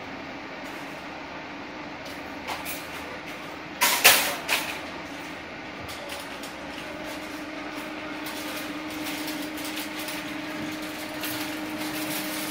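Background noise at a supermarket entrance with a steady hum, broken by a loud short clatter about four seconds in and a smaller one just after, then scattered light clicks and knocks.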